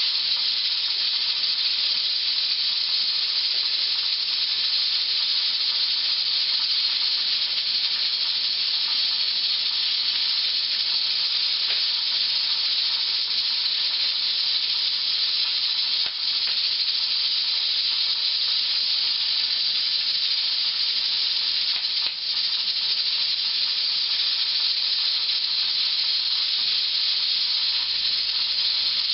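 Pressure canner hissing steadily with escaping steam as it cooks jars of green beans on a wood-burning kitchen range. The high hiss dips briefly twice.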